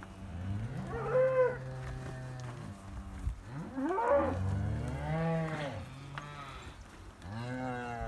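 Shorthorn cattle mooing: several long calls, some overlapping. One call about four seconds in rises sharply in pitch, and another starts near the end.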